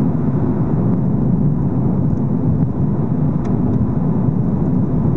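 Steady low rumble of a car's engine and tyres at road speed, heard from inside the moving car.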